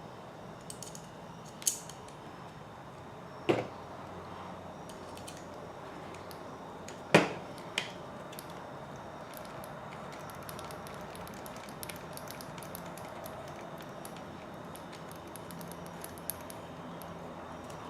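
Small tools and parts being handled during a kit build: a few sharp clicks, the loudest about seven seconds in, and scattered light ticks over a steady low hiss, as screws are fitted to hold the transmission in place.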